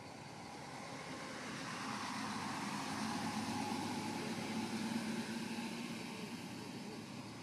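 A motor vehicle passing by: a steady rumble of engine and road noise that swells to its loudest around the middle, then fades away.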